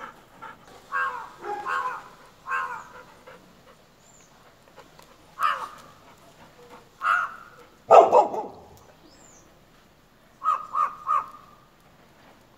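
A crow cawing and a golden retriever barking, in short groups of harsh calls. The loudest call comes about eight seconds in, and three quick calls come near the end.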